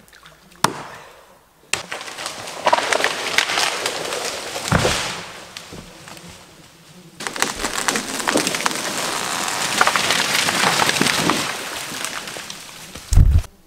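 A single axe chop, then a live ash tree cracking, splintering and crashing through neighbouring branches as it is felled, ending in a heavy thud as it hits the ground near the end.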